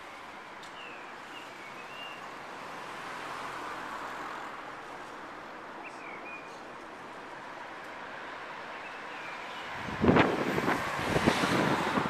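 Steady city traffic hum with a few short bird chirps in the first nine seconds. About ten seconds in, a loud, rough burst of wind buffets the microphone.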